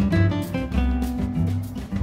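Intro music with a guitar over a steady beat.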